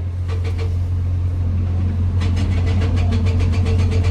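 Excavator's diesel engine running with a steady low hum. From about two seconds in, a rapid rattling clatter comes in, about seven clicks a second.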